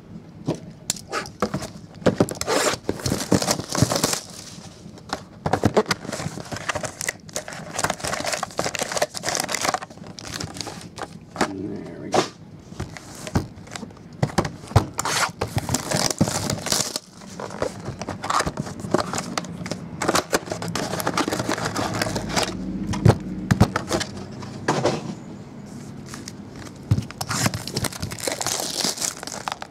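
Plastic shrink wrap being torn off and crinkled on boxes of Select basketball cards, with the cardboard boxes handled and set down. It is an irregular run of crackles and rustles with sharp clicks and knocks.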